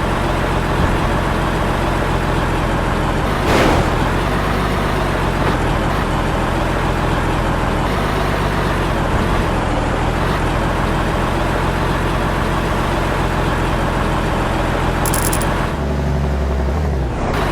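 An engine running steadily at idle, with a short hiss about three and a half seconds in and a deeper rumble shortly before the end.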